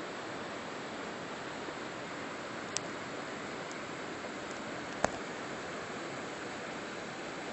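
Steady rush of flowing river water, with two short sharp clicks, about three and five seconds in, the second the louder.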